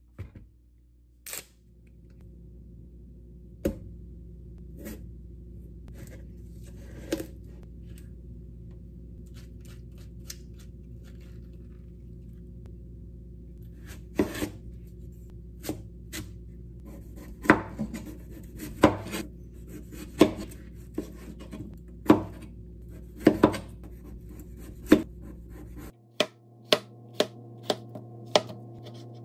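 A large kitchen knife cutting through a honeydew melon and knocking against a plastic cutting board. There are a few scattered knocks at first, then a run of sharp, evenly spaced cuts, which come quicker near the end as the melon is cut into bite-size pieces.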